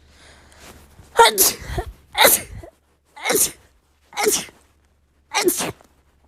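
A woman sneezing five times in quick succession, about one sneeze a second.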